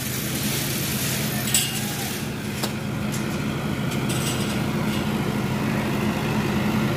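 Open-frame 60 kVA diesel generator set running steadily, an even low engine drone, not very loud for an unenclosed genset. A few light clicks sound over it.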